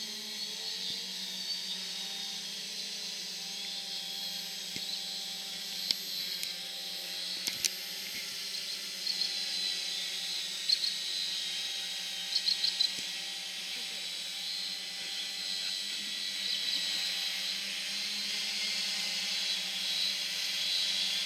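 Electric motors and propellers of a scratch-built quadcopter hovering: a steady whirring hum whose pitch wavers as the motor speeds keep adjusting. A few short high chirps sound over it.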